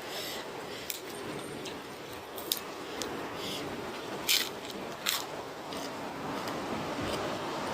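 A person eating a spicy cucumber salad with fresh greens: chewing, with a few short sharp crunches or clicks, the loudest about four seconds in.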